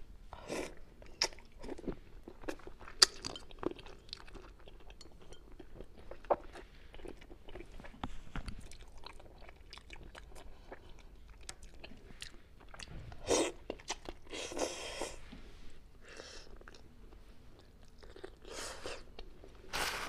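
Close-miked chewing and biting on a braised Chinese forest frog (snow clam), with irregular crunches throughout. A few louder, longer sounds come about thirteen to fifteen seconds in and again near the end.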